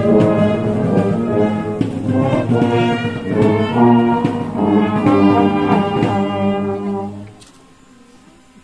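Brass band playing a tune: trumpets, trombones and saxophones over steady tuba bass notes. The music stops sharply about seven seconds in, leaving only a quiet background.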